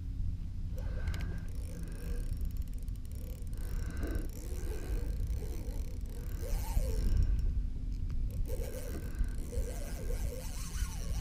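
Steady wind rumble on the camera microphone, with intermittent mechanical scraping and clicking from a spinning reel as a fish pulls against the hard-bent rod.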